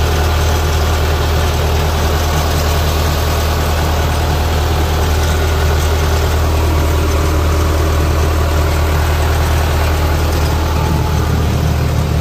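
Kubota DC-105X combine harvester's diesel engine running steadily, a deep, even hum that holds the same pitch throughout.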